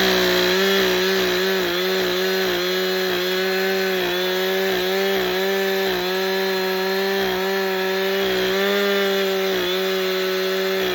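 Chainsaw running flat out at steady high speed, a constant high-pitched motor note that dips slightly in speed a few times.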